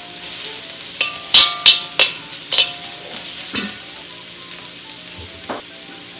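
Sliced onions sizzling in ghee in a cast-iron wok, with a steady frying hiss. A metal spatula knocks and scrapes against the pan about seven times, each knock ringing briefly; most come in the first half and the loudest is about a second and a half in.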